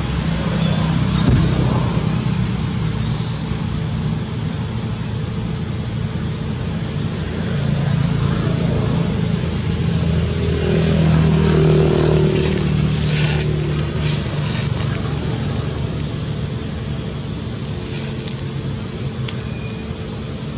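A motor vehicle engine running steadily, a low hum that swells louder for a few seconds midway, then settles back.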